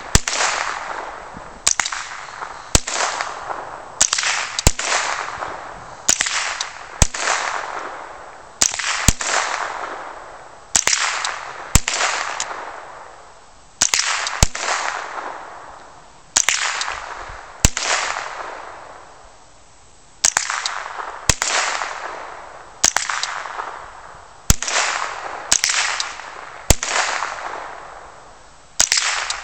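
Two .22 LR rifles, a DPMS AR-type rifle with a Gemtech G5 suppressor and a GSG-5, firing single shots with the shooters taking turns. There are about two dozen shots, roughly one a second and sometimes two close together, each followed by an echo that fades over about a second.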